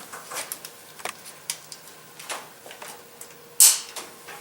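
Scattered light clicks and knocks of the metal retaining clips being pushed onto a new distributor cap, with one louder snap near the end.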